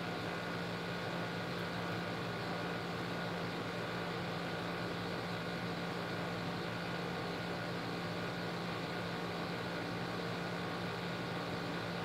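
Steady background hum and hiss of room noise, unchanging throughout, with a low steady drone.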